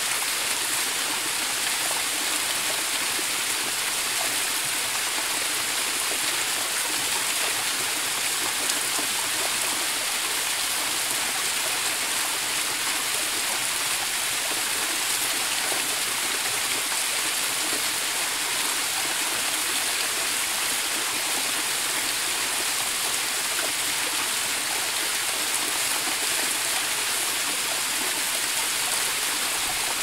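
Waterfall's falling water rushing steadily: an even, bright hiss with little low rumble.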